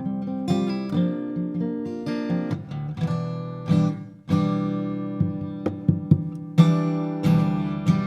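Solo acoustic guitar played fingerstyle, plucked notes and chords ringing out, with a brief pause about four seconds in before a strong new chord.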